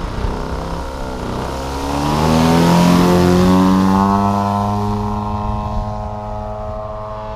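Radio-controlled Extra 330 SC model aerobatic plane's engine opening up for takeoff. Its pitch rises over the first couple of seconds and it is loudest about three seconds in as the plane rolls past. It then fades and sinks slightly in pitch as the plane climbs away.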